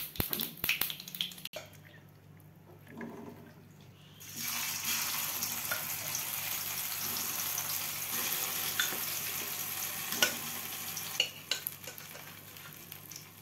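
Hot sesame-oil tempering in a steel kadai sizzling as the wet citron pickle is added to it. The sizzle starts suddenly about four seconds in, holds steady, and dies down near the end; a few light clicks come before it.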